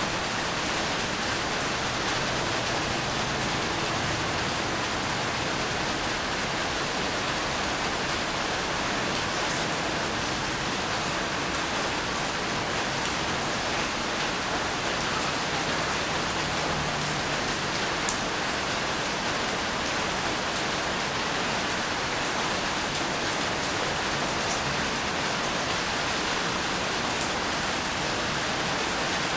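Steady rain falling: an even hiss with scattered, sharper ticks of individual drops striking.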